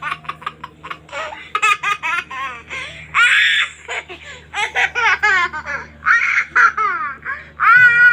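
High-pitched giggling laughter in many quick bursts, bending up and down in pitch, with the longest and loudest laugh near the end.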